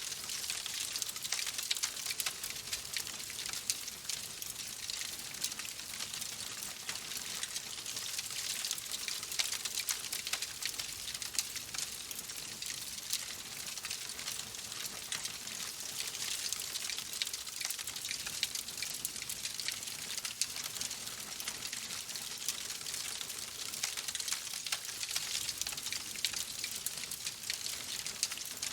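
Fire crackling in a fireplace: a steady hiss dotted with many small snaps and pops.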